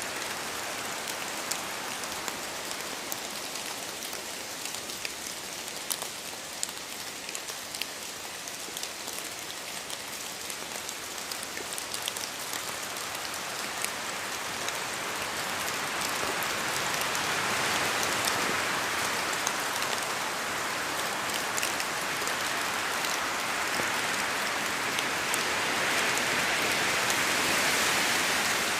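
Steady rain falling in a forest, a dense hiss with many sharp drop ticks. It swells louder and fuller about halfway through.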